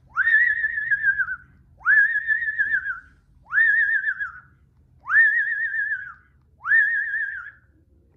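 Yellow-naped Amazon parrot giving five loud whistled calls, each swooping up and then wavering for about a second before trailing off, a little over a second and a half apart: the cries of a parrot left alone and calling for its owner.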